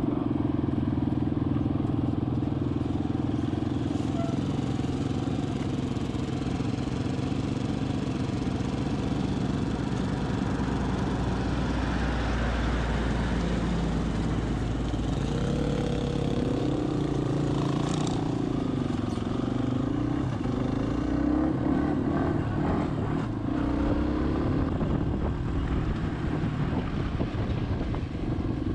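Dirt bike engine running while riding on a gravel road, with a steady rush of wind and tyre noise. Around the middle the engine note drops and rises again a few times as the bike slows and picks back up; one short knock can be heard partway through.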